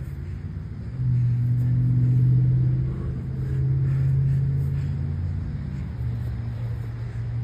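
A motor running with a steady low hum that gets louder about a second in and eases off a little near the end.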